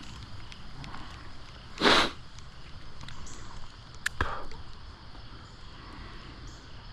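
A fishing rod swishing through a cast with one short loud whoosh about two seconds in, followed about two seconds later by a sharp click and a brief softer rush. A steady outdoor hiss runs underneath.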